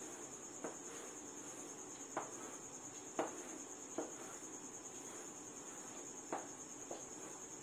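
Chalk drawing straight lines on a blackboard, with about half a dozen short taps as the chalk strikes the board, over a steady faint high-pitched tone.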